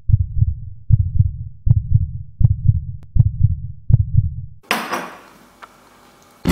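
A heartbeat sound effect: six low, double lub-dub thumps, one about every three quarters of a second. A burst of hiss comes in near the end and fades away.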